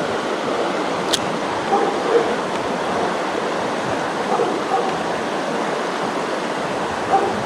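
Creek water rushing steadily, with a sharp click about a second in and a few faint short sounds over it.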